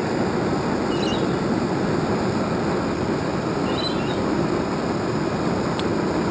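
Small metal-melting furnace running with a steady, even rushing noise while gold melts in its crucible under the lid.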